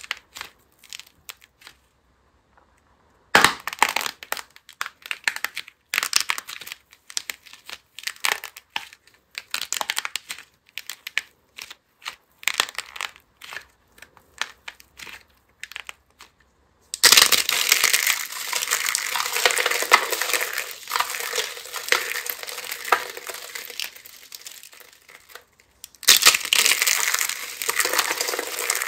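Soft modelling clay pulled and broken apart by hand, giving scattered small crisp cracks and snaps. About two-thirds of the way through, this gives way to dense, loud crunching as brittle dried soap pieces mixed with sequins and glitter are crushed in the hands, with one short pause near the end.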